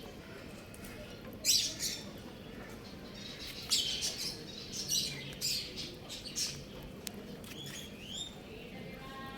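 Baby chicks peeping: short, high-pitched chirps scattered at irregular intervals, sometimes two or three in quick succession.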